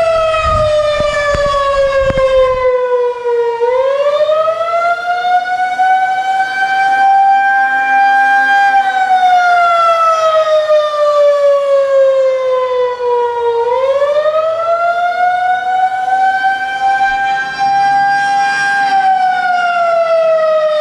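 Federal Signal 2001-130 electromechanical outdoor warning siren sounding the attack signal: a loud wail that falls slowly, then climbs quickly and holds at its top pitch, about once every ten seconds.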